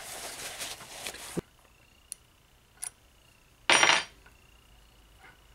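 Paper towel rubbing as grease is wiped off the demolition hammer's striker piston, then a couple of small clicks and one loud metal clink about four seconds in as the parts are handled in the open housing.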